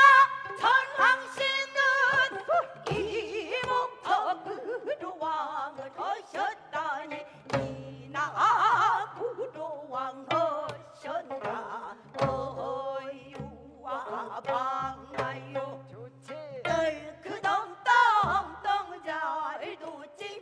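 Gayageum byeongchang: women's voices singing in pansori style while plucking gayageum zithers. A buk barrel drum beats time with low strokes every few seconds.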